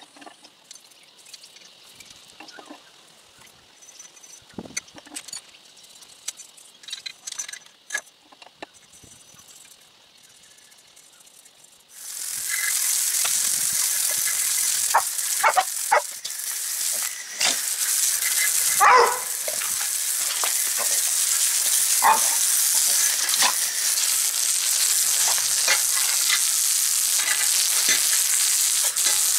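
Faint scattered taps and brushing for the first dozen seconds. Then a hose spray starts suddenly: a loud, steady hiss of water jetting onto a bare chromoly BMX frame to rinse off paint stripper and stripped paint, with occasional knocks from the frame.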